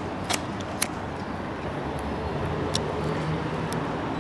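Steady city street background noise, the hum of distant traffic, with a few short sharp clicks.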